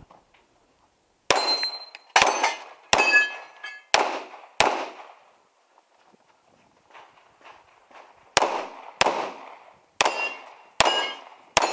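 Pistol shots in rapid succession: about five shots in quick pairs and singles, then a pause of about three seconds, then another five, each with a short echo. A ringing tone lingers after several of the shots.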